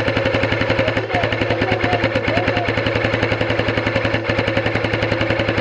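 Airsoft electric gun firing a long full-auto burst: a rapid, even rattle of about twenty shots a second over a steady motor-and-gearbox hum, close up on a gun-mounted camera.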